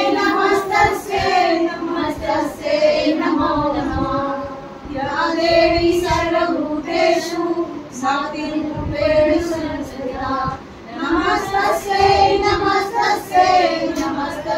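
A group of women singing a Hindu devotional bhajan together in unison, with hand claps keeping a steady beat.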